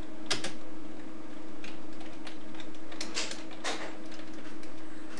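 Computer keyboard keys being typed, a handful of sharp clicks spaced irregularly with a short cluster about three seconds in, over a steady faint hum.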